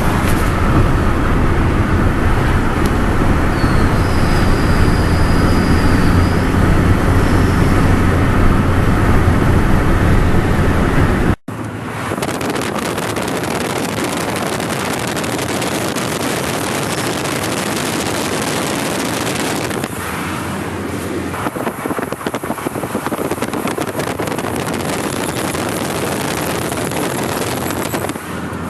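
Fiat Stilo 1.9 JTD four-cylinder turbodiesel car accelerating in fourth gear from about 2000 rpm, heard from inside the car, with the odd creak under acceleration that is louder on the driver's side. The sound breaks off about a third of the way in and resumes with less low rumble.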